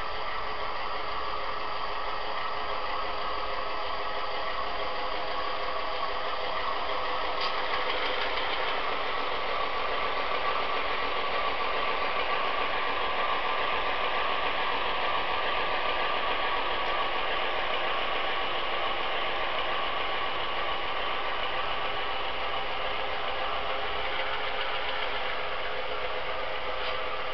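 Tsunami sound decoder playing a GE U30B four-cycle diesel engine sound through a high-bass speaker inside a Walthers U30B model locomotive, running steadily as the model moves along the track.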